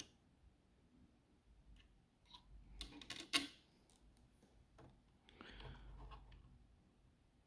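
Faint clicks and taps of small tools and parts being handled, a cluster about three seconds in with one sharp click as the loudest, then a soft rustle near six seconds.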